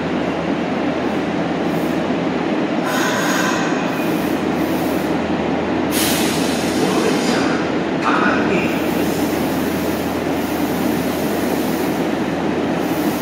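Nagoya Municipal Subway Tsurumai Line train running, a steady loud rumble with brief high-pitched screeches about three and eight seconds in.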